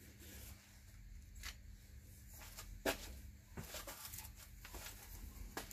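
A few faint clicks and taps from a wooden bottle-stopper blank being turned by hand on a threaded metal mandrel, over a faint steady hum.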